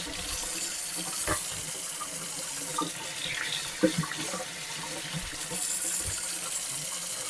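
Kitchen tap running steadily into the sink while green peppers are rinsed by hand under the stream, with a few light knocks about one and four seconds in.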